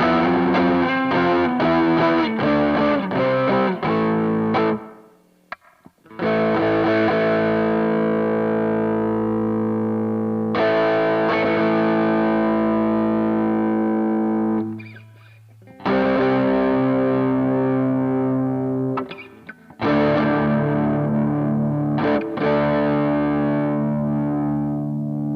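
Overdriven electric guitar played through a BOSS OD-2 Turbo Overdrive pedal. It opens with a quick run of picked notes for about four seconds, then after a short break a series of long chords is struck and left to ring for several seconds each, with brief gaps between them.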